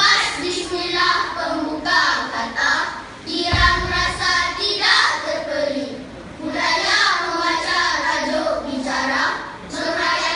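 A group of schoolchildren performing choral speaking: many young voices reciting together in a sing-song chant, phrase after phrase with short breaks between, and a dull thud about three and a half seconds in.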